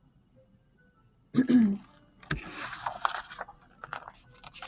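Pages of a hardcover picture book being turned and handled: a sharp knock, then paper rustling with small ticks for about two seconds, after a short vocal sound from the reader.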